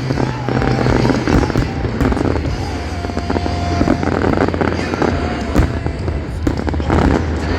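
Fireworks going off in rapid succession, a dense crackle of bangs with no pause, over loud music from the show's soundtrack.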